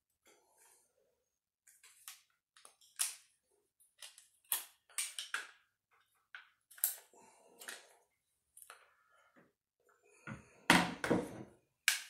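AR-15 rifle being taken apart by hand: scattered metal clicks and knocks as the takedown pins are pushed out and the upper and lower receivers are separated. There is a cluster of louder knocks about ten to eleven seconds in.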